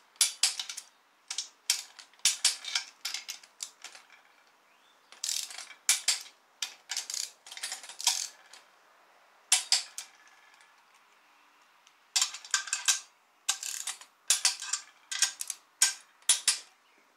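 Socket wrench ratcheting in short bursts of rapid clicks, with brief pauses, as bolts are run down and tightened on an aluminium engine block's lower crankcase.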